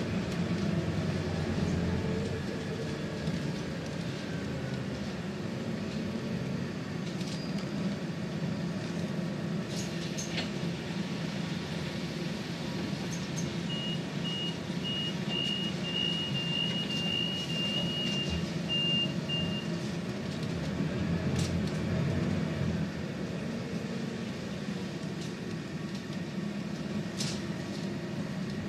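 Inside a Scania Citywide 12 LF CNG city bus on the move: the gas engine and road noise make a steady drone, with the pitch rising and falling a few times and short rattles and clicks from the fittings. About halfway through, a rapid string of high beeps sounds for around six seconds.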